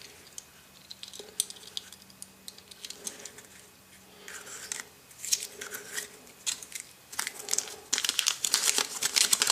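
Crinkling and rustling of small toy wrapping with light plastic clicks as a Kinder Surprise toy motorcycle and its parts are handled; the clicks and rustles come thicker near the end.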